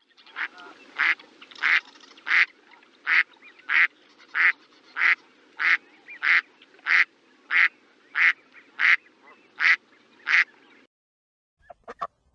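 A duck quacking in a long, evenly paced series, about three quacks every two seconds, over a faint steady background hiss. The quacks stop about eleven seconds in, followed by a few short, sharp clicks near the end.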